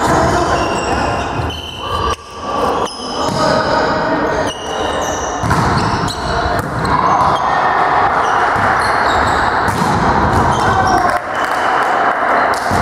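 Volleyball rally in a gymnasium: sport shoes squeaking on the hall floor again and again, the ball being struck now and then, and players' voices, all echoing in the hall.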